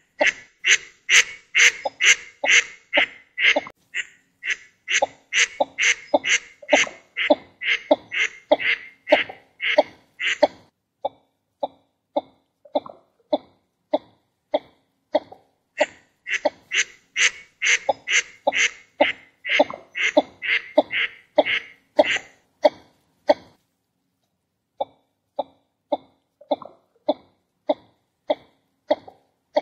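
Northern shoveler calls: a long series of short, clipped nasal calls repeated about two to three times a second. The calls come brighter and higher from the start to about ten seconds in, and again from about sixteen to twenty-two seconds in, with lower, duller calls between and after, broken by a short pause about twenty-four seconds in.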